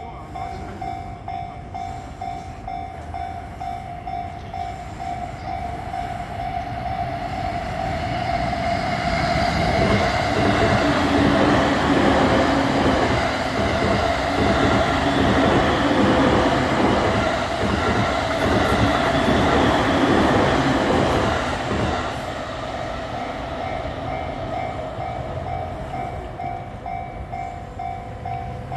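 Japanese level-crossing warning bell ringing in a steady repeated ding. A train passes over the crossing, building up from about a third of the way in, running loudest with a rhythmic clatter of wheels over the rails, then fading away before the last quarter while the bell keeps ringing.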